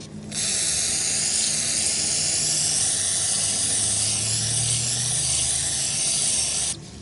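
Aerosol can of carburetor cleaner spraying in one long, steady hiss of about six seconds into a varnished carburetor. It cuts off abruptly near the end.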